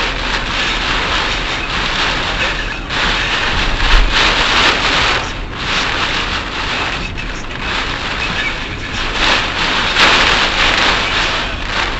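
A car driving in typhoon rain on an expressway: a loud, steady hiss of rain and tyre spray that swells and eases in waves every second or two.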